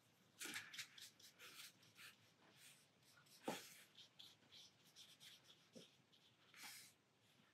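Faint swishes and scratches of a wet watercolour brush stroking paint onto watercolour paper, with a sharper tap about three and a half seconds in.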